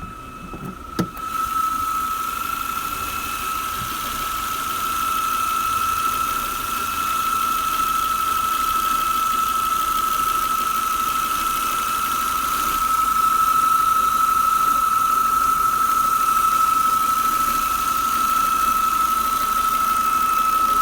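Steady, high-pitched squeal from the engine bay of a Volvo V70 II 2.4-litre five-cylinder, running warmed up to operating temperature; the squeal appears only once the engine is warm. A sharp click about a second in, after which the engine noise is louder.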